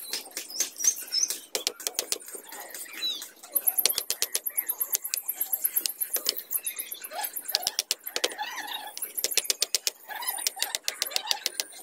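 Sharp taps and knocks as bamboo poles are hammered together into a fence panel, with birds chirping.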